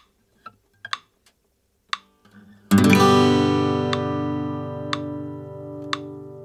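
Acoustic guitar strumming a G chord once, about two and a half seconds in, and letting it ring and slowly fade, over a click track ticking once a second at 60 beats per minute. Before the strum there are faint finger and string noises as the chord shape is set.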